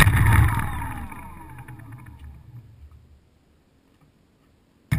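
Quadcopter's electric motors and propellers spinning down once the throttle is cut, a whine that falls in pitch and fades away over about three seconds. Near the end a sudden loud knock.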